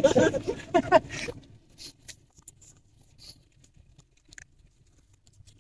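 A voice for about the first second, then the faint low hum of a car's cabin on the move, with a few scattered small clicks and taps.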